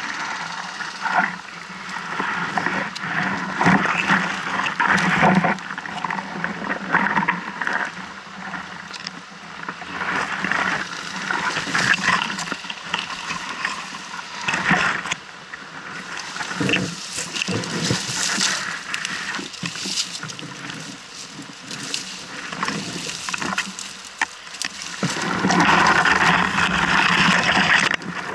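Leaves and stems rustling and scraping close against a moving camera as someone pushes through dense brush. The crackling comes in uneven bursts and is loudest near the end.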